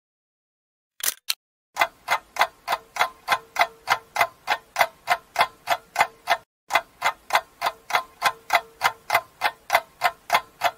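Ticking-clock sound effect, an even run of sharp ticks at about three to four a second. It starts after two faint clicks and breaks off briefly past the middle.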